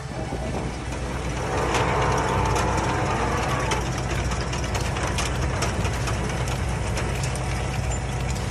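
Heavy diesel farm machinery running steadily with a low engine hum, and scattered clicks and rattles over it.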